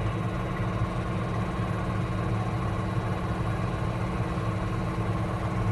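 An engine idling steadily: an even, unchanging low hum.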